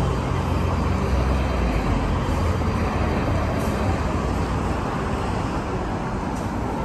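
Busy city street traffic: a steady wash of road noise from passing vehicles, with a low engine rumble in the first few seconds that fades.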